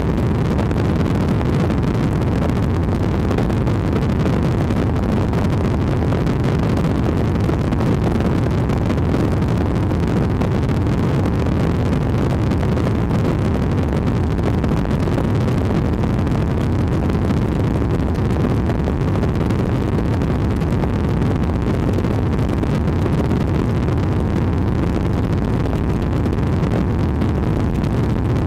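Steady low rumble of an aircraft's engine noise, heard from on board while filming from the air, with no change in level.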